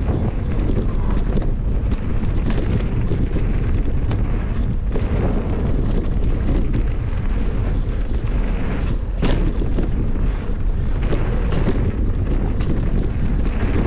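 Wind buffeting an action camera's microphone as a Merida Big Trail 500 hardtail mountain bike rides down a dirt trail, with tyre rumble and scattered knocks and rattles from the bike over bumps; one sharper knock about nine seconds in.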